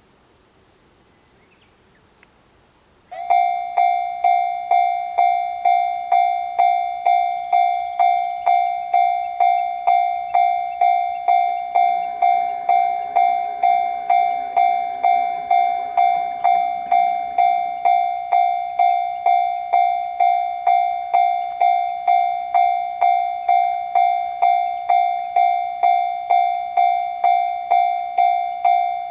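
Japanese railroad crossing warning bell starting up about three seconds in, then ringing its 'kan-kan' about twice a second in one steady ringing tone, the signal that a train is coming and the crossing is closing. A fainter low hum rises and fades underneath in the middle.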